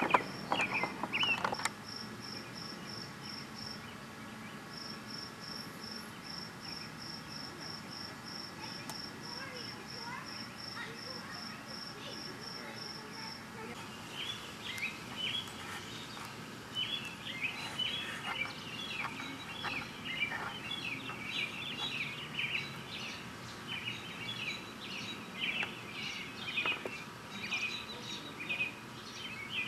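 Faint outdoor evening ambience of birds and insects chirping. A single high chirp repeats evenly, about three times a second, for the first half. From about halfway in, many short bird chirps and twitters take over.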